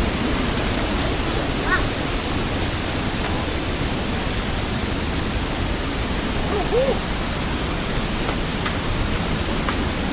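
Large waterfall crashing down, a loud, steady, even rush of falling water with no break. Two faint short pitched sounds rise briefly over it, about two seconds in and again near seven seconds.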